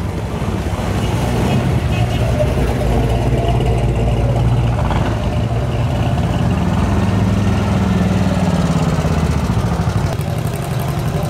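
Classic cars' engines running as they roll slowly past one after another, a steady low rumble that swells a little past the middle.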